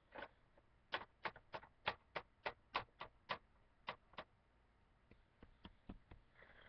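A small plastic toy figure tapped against a hard plastic playset: a quick run of about a dozen light clicks, roughly three a second, then a few fainter taps near the end.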